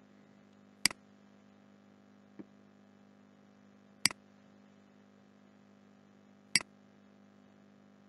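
Three sharp computer mouse clicks, a little under a second in, about four seconds in and about six and a half seconds in, with a fainter tick between the first two, over a steady low hum.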